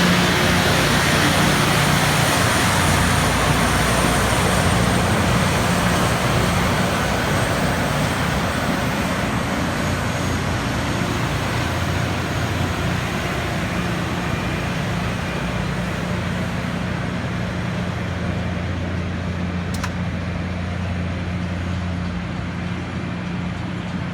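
Rail grinder working along the track: a wide, steady hiss from the grinding stones on the rail over the steady drone of its diesel engines, slowly growing quieter.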